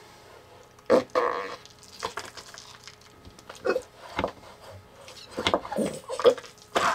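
GAK putty squelching in a Frrrrt Bucket toy cup as its plunger is worked, letting out a string of short fart-like noises. The loudest come about a second in and again near the end.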